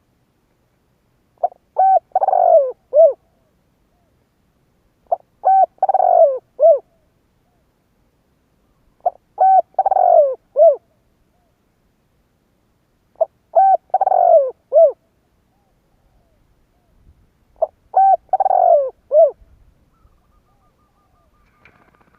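Spotted dove cooing: five calls, one about every four seconds, each a short phrase of a few coo notes.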